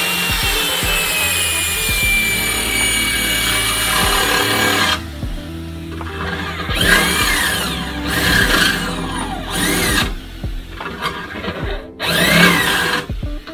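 Electric drill boring into the car's sheet-metal body: one long run of about five seconds, then several shorter runs in which the motor's whine rises and falls as the trigger is squeezed and let go.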